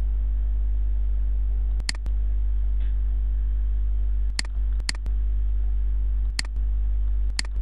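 Steady electrical mains hum with its overtones, carried over an internet voice-chat line. It is broken about five times by a short sharp click, and each click briefly drops the hum.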